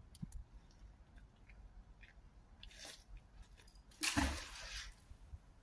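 A magnet-fishing magnet on a rope hitting the canal water with a short splash about four seconds in, after a few faint clicks and rustles of rope handling.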